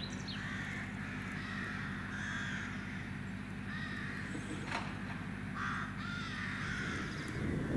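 A bird calling over and over, short harsh calls roughly once a second, with a few higher chirps from other birds and a steady low hum underneath.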